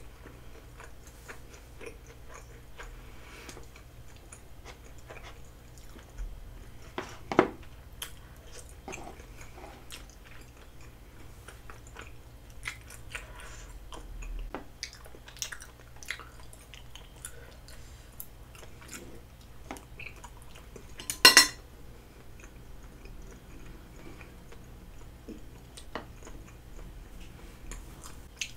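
Close-miked chewing and wet mouth sounds of someone eating, with many small scattered clicks. Two louder sudden sounds stand out, one about seven seconds in and another about two-thirds of the way through.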